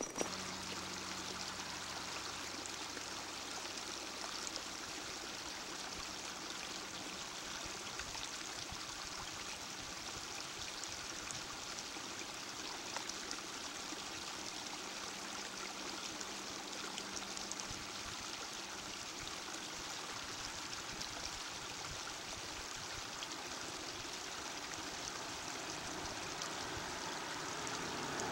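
Steady rushing of a stream, an even unbroken noise of running water.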